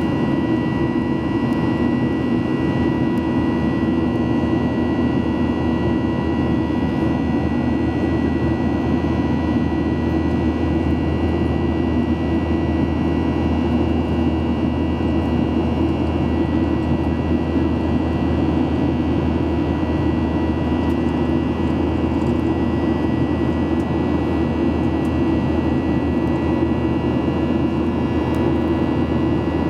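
Steady cabin noise inside a Boeing 737-800 in flight: the low rumble of its CFM56-7B turbofan engines and the rushing air, with a few thin steady whine tones on top.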